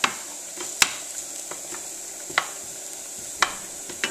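Carrot sticks sizzling in a non-stick frying pan, with a few sharp knocks of a wooden spoon against the pan as they are stirred, the loudest about a second in.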